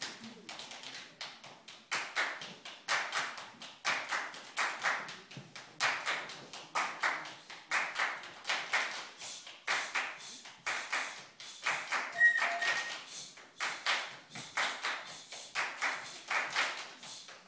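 Drum band performing body percussion without instruments: rhythmic claps and taps played together as a group. Soft taps at first, then louder strokes join in about two seconds in.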